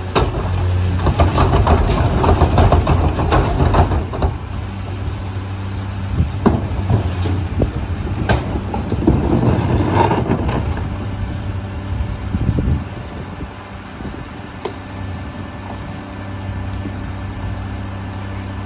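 Mack LR garbage truck with a McNeilus rear loader body at work: its diesel engine and loader running loud for the first few seconds, with clanks and knocks over several seconds, then settling to a steady low engine hum.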